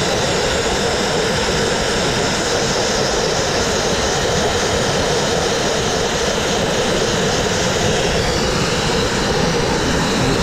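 Dustless (wet) abrasive blasting nozzle firing crushed glass at a painted brick wall: a loud, steady hissing rush as it strips cement-backed masonry paint down to the brick.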